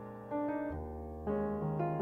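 Piano music: chords struck every half second or so and left ringing, each fading before the next.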